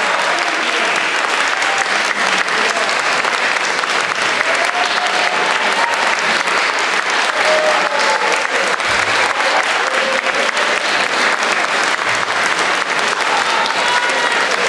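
Audience applauding: dense, steady hand clapping from a large crowd.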